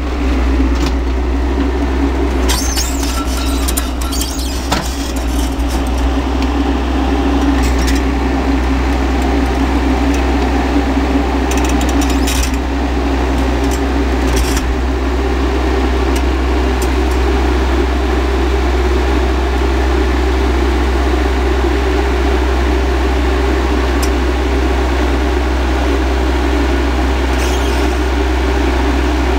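L&T-Komatsu PC mini excavator's diesel engine running steadily close by, with scattered clanks and rattles as the machine works.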